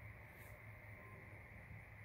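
Near silence: steady low hum of room tone, with one faint click about half a second in.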